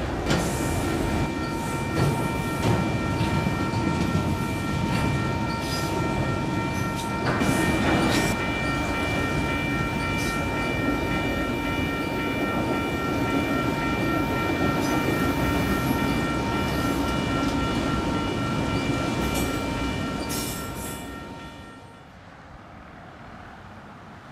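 Freight train of autorack cars rolling past, its wheels rumbling and knocking over the rail joints, with several steady high tones ringing together over the rumble. Everything drops away sharply near the end as the last car leaves.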